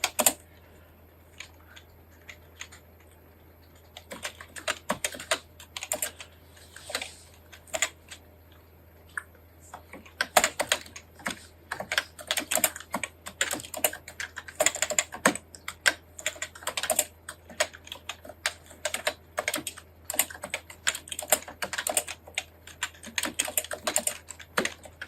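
Computer keyboard keystrokes, typing Japanese kana in the NICOLA thumb-shift layout. A few scattered keypresses with pauses give way, about ten seconds in, to fast, continuous typing.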